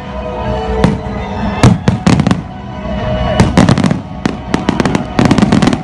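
Fireworks display bursting overhead: rapid crackling bangs in several clusters, with a quieter gap between them.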